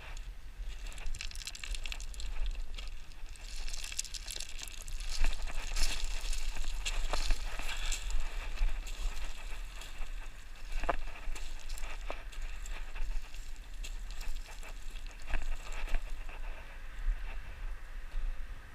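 Footsteps and scrambling on loose gravel and rock: irregular crunching, scuffing and sharp clicks, busiest in the middle, over a low steady rumble of wind or handling on the microphone.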